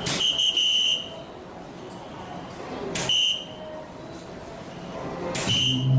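Three soft-tip darts hitting an electronic dartboard, one every two and a half seconds or so. Each hit is a sharp click followed by the machine's short, high electronic beep as it registers the score, here a triple 19 and two single 17s.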